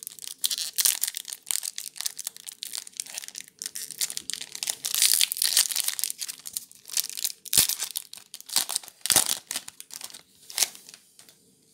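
Foil Magic: The Gathering booster pack wrapper being crinkled and torn open by hand: a dense run of crackling and crinkling that is thickest about halfway through, with a couple of sharper snaps later on, fading out near the end.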